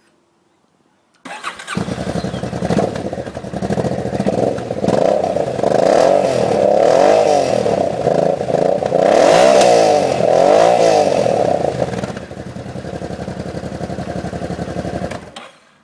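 Honda DN-01's V-twin engine started about a second in through an unbaffled, open exhaust with its end plate removed, idling and revved several times, then shut off near the end.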